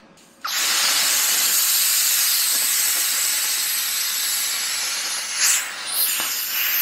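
ESAB Cutmaster 40 air plasma cutter cutting metal at 20 amps: a steady, loud hiss of the torch that starts abruptly about half a second in, with a couple of brief louder flares near the end.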